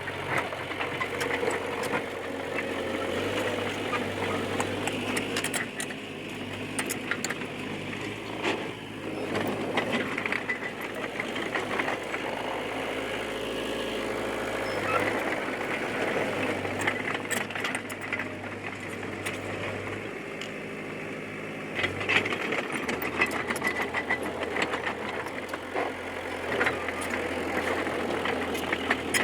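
D20P bulldozer's diesel engine running under work, its speed stepping up and down several times. Sharp metallic clanks and clicks come in the last third.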